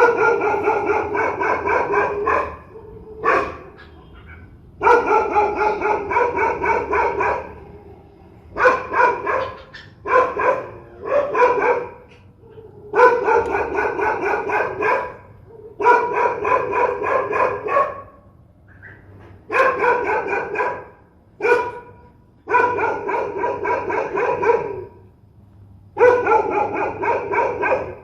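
Dog barking fiercely in fast volleys of a few seconds each, separated by short pauses, with a few single barks in between.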